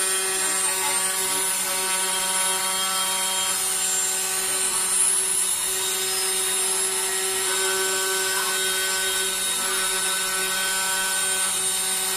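Small desktop CNC router running: the spindle motor and the axis stepper motors give a steady whine of several held tones over a hiss. A higher whine comes in about seven and a half seconds in and stops about four seconds later.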